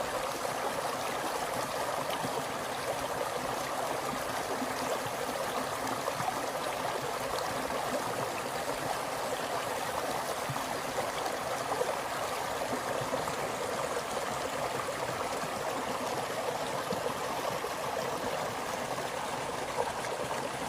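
Snowmelt runoff water rushing and gurgling in a small stream, a steady splashing flow.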